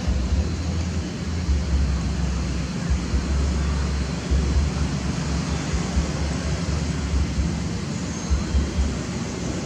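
Wind buffeting the microphone: a steady rushing hiss with an uneven, gusty low rumble.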